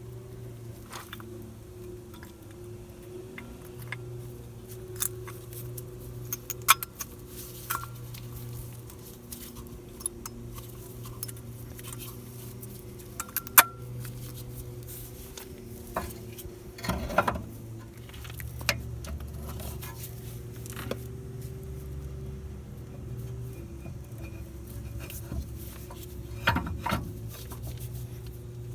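Metal tools and brake parts clinking and knocking now and then while a front caliper carrier is refitted, with a short scraping rattle partway through, over a steady low hum.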